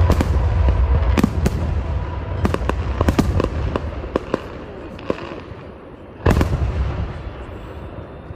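Aerial firework shells bursting in a rapid volley: sharp bangs over a dense, rolling low rumble that thins out after about three seconds, then a single loud boom about six seconds in that dies away in a rumble.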